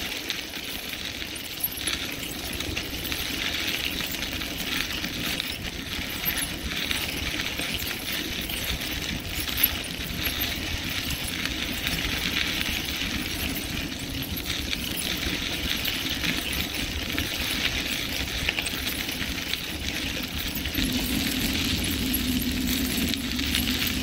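Bicycle rolling along a crushed-stone rail trail: a dense, continuous crunching and rattling of tyres and frame on the gravel, with wind rumbling on the microphone.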